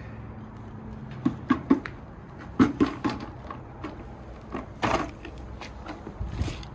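Bricks being handled and loaded into a bucket, giving a run of irregular hard knocks and clinks of brick against brick.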